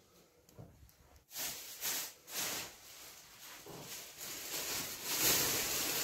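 Plastic bags rustling and crinkling, starting suddenly about a second in with a few short crackling bursts, then running on continuously and getting louder near the end.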